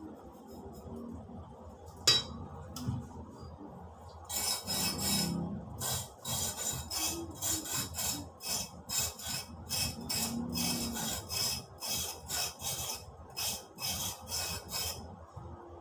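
A blade scraping the ridged skin off an angled luffa gourd (oyong) in quick repeated strokes, about two a second, starting about four seconds in. A single sharp click sounds about two seconds in.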